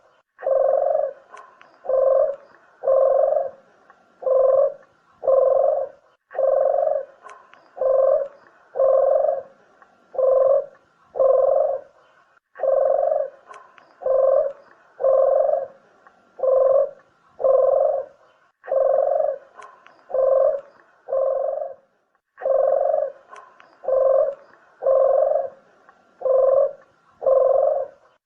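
Barbary dove (burung puter) cooing: low, evenly repeated coos about one every 0.7 seconds, in runs broken by a short pause about every six seconds.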